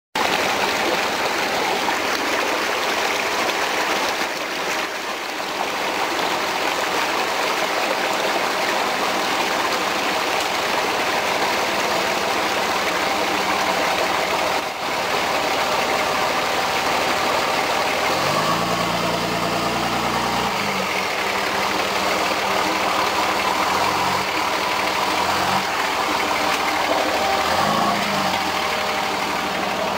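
Off-road buggy's Cummins diesel engine running steadily as it crawls over creek-bed rocks. About two-thirds of the way through it revs up for a few seconds, then twice more briefly near the end.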